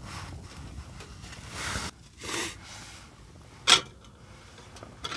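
Wooden chopsticks working on a metal camping plate: a couple of soft scraping rustles, then one sharp click about three and a half seconds in. A low steady rumble runs underneath.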